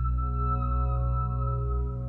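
Background music of slow, held notes.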